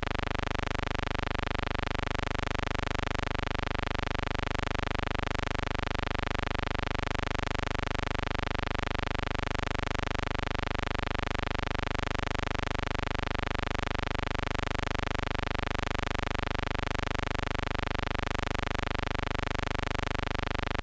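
Steady, unchanging electrical buzz: a constant hum with many overtones and no train sound in it, the kind of line noise left on the audio track of footage shot without sound.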